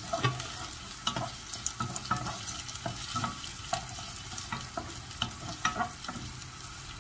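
Chopped onions sizzling in hot oil in a nonstick saucepan, stirred with a wooden spoon that knocks and scrapes against the pan in irregular taps.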